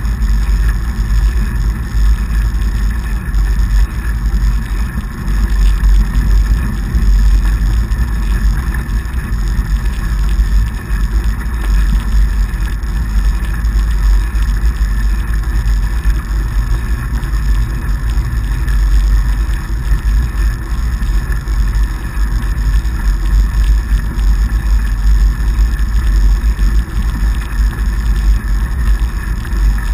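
Steady wind rumble on the camera's microphone, mixed with the rolling noise of a fatbike's wide tyres on packed snow, while riding at speed.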